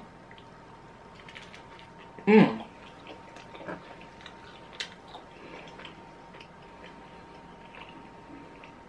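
A person chewing a mouthful of pizza, with faint scattered mouth clicks and smacks, and a short voiced 'mm' about two and a half seconds in. A faint steady high tone runs underneath.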